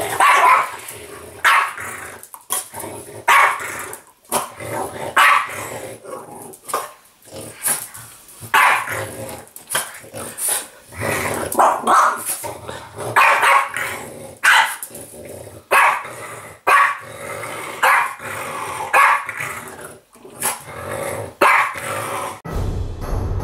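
French bulldog barking and growling in play, short gruff barks about once a second at an uneven pace. Music comes in near the end.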